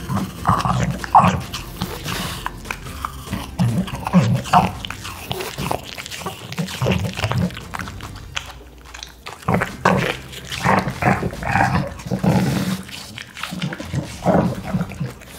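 French bulldog chewing and crunching pieces of apple with its mouth open, in irregular bites.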